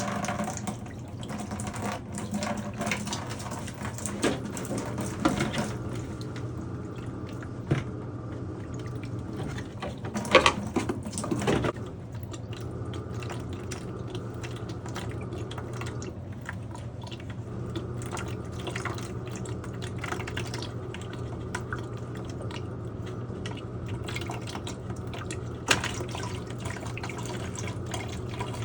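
Water trickling and dripping from the opened water heater plumbing, with scattered clicks and knocks from handling parts, the loudest about ten seconds in, over a steady low hum.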